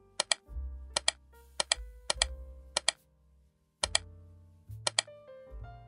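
Background music with a slow bass line and soft sustained notes, cut by sharp paired clicks at irregular intervals, about six pairs. The clicks are computer mouse button presses and releases.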